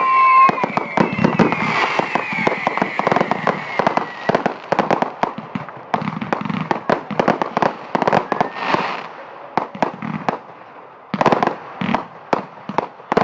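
Fireworks going off in a rapid, irregular string of bangs and crackles. Over the first few seconds, several whistles fall in pitch, and a hiss swells up about nine seconds in.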